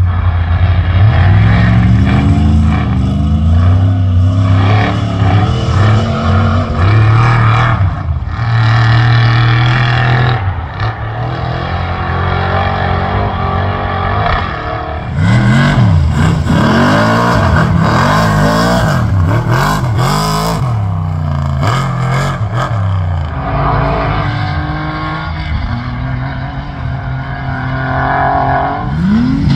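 Off-road race vehicles on a dirt short course, their engines running hard and revving as several pass one after another, pitch rising and falling with each pass. The revving is busiest about halfway through.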